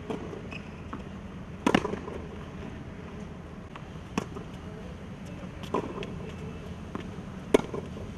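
Tennis ball struck by racquets in a baseline rally: a sharp pock every one and a half to two seconds, some loud and close, some fainter from the far end of the court. The loudest hits come about two seconds in and near the end.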